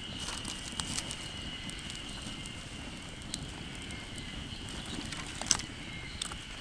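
Wood campfire crackling, with sparse sharp pops, one louder about five and a half seconds in, over a faint steady high tone.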